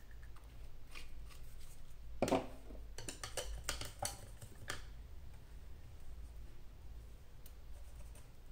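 A single knock about two seconds in, then a quick run of light clicks and taps for under two seconds, as painting tools are handled on the work table.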